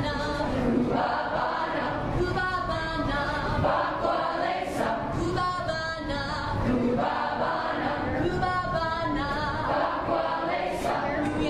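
A group of young people singing together a cappella, many voices in sustained sung phrases with no instruments.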